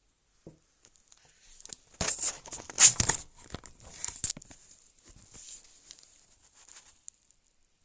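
Irregular rustling and crackling noises with a few sharp clicks, loudest from about two to four and a half seconds in, over a faint steady high-pitched tone.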